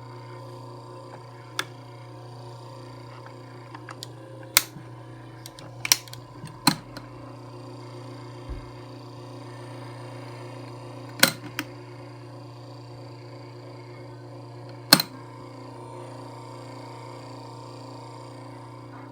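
Camel CDF 1616C electric fan running with a steady motor hum, broken by sharp rattling clicks every few seconds at uneven intervals: a rattle fault in the brand-new fan.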